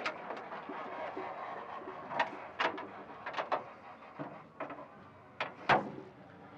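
Hood of a 1951 Studebaker being unlatched, swung up and propped open: a handful of short metal clicks and knocks from the latch, hinges and prop rod, the loudest near the end, over steady background noise.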